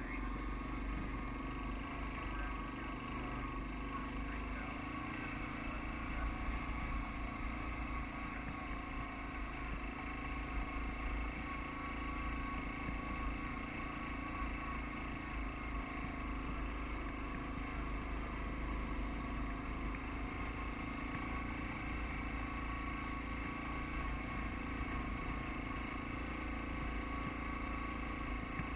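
ATV engine running steadily as it pulls uphill.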